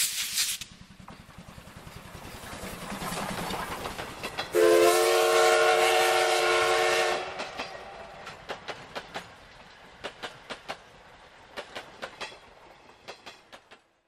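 Steam train sound effect. A hiss and a rising rush of noise lead into a loud multi-tone steam whistle about four and a half seconds in, held for over two seconds. Then the wheels click steadily over rail joints, fading away before cutting off near the end.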